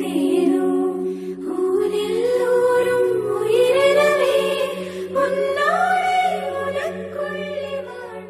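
Background song: voices singing a slow melody over a steady low drone, fading out near the end.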